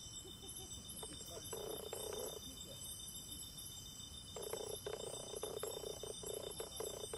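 Insects calling in a steady, high-pitched pulsing trill, with a lower rattling call breaking in briefly and then again through the last few seconds, and a few faint clicks.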